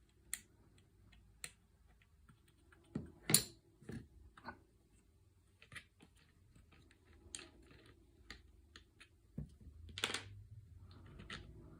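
Scattered clicks and knocks of the original pistol grip being unscrewed and taken off a CZ Scorpion EVO 3, with the loudest knocks about three and ten seconds in.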